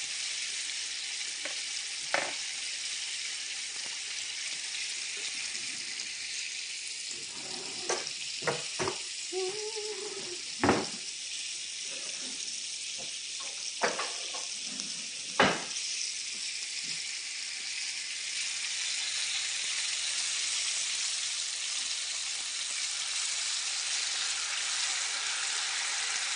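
Egg-washed fish frying in a hot skillet: a steady sizzle that grows a little louder in the second half. A few sharp clicks and knocks of kitchen utensils land over the sizzle, most of them between about 7 and 16 seconds in.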